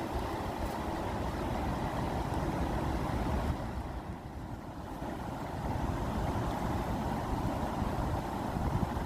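Rushing water, a steady low noise that eases briefly about four seconds in.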